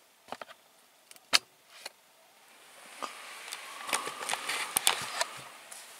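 The plastic switch of a small battery-powered LED light clicking a few times, the loudest click about a second and a half in as the light goes off. From about halfway through, fabric rustles and crinkles with small clicks, growing louder as a sleeping bag is moved.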